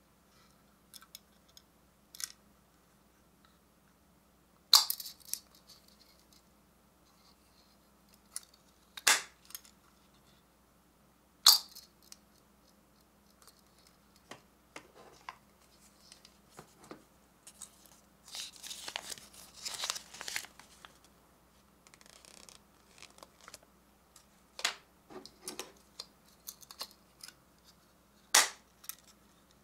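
Hard plastic gashapon capsules being handled: scattered clicks and snaps of plastic shells, a few of them sharp, with a couple of seconds of scraping and rattling in the middle. Near the end a sharp snap as a yellow capsule's lid is pried open.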